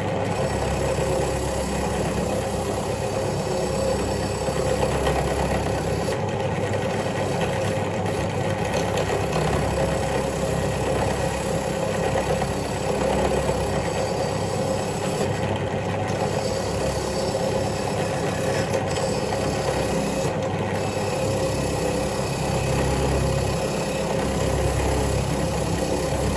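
Electric power tool motor running steadily with a constant hum while a rusty bolt, held in mole grips, is pressed against it to clean off the rust.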